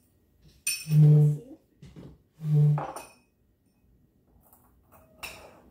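Fresh chilies being smashed in a small dish: a utensil knocking and clinking against the dish. Two short, low humming tones come about a second in and about two and a half seconds in, and they are the loudest sounds.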